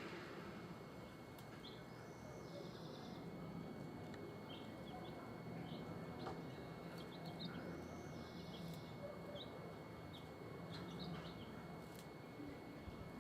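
Birds chirping in scattered short high notes, with two brief buzzy trills, over a faint steady low hum.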